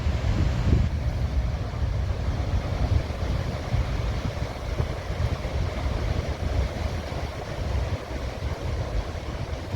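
Wind buffeting the microphone over the rumble of heavy storm surf breaking.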